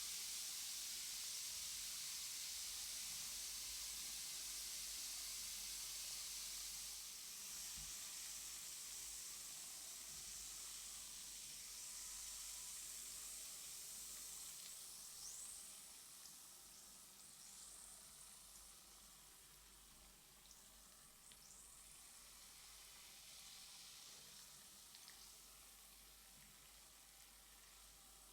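Bath bomb fizzing as it dissolves in water: a steady high hiss that slowly fades, with a few faint pops in the second half.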